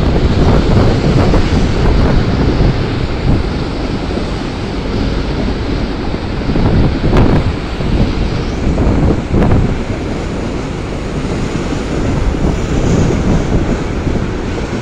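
Freight train of tank wagons rolling past on the rails, a steady low rumble with a few sharp clicks from the wheels, mixed with wind buffeting the microphone.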